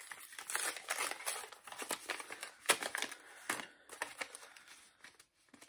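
Paper rustling and crinkling in irregular bursts as a folded note with a small gift inside is opened by hand, with a sharp tap near the middle. It dies down in the last second or so.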